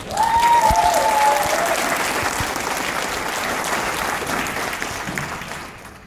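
Auditorium audience applauding, with a single held cheer sounding over the clapping in the first second and a half; the applause dies away near the end.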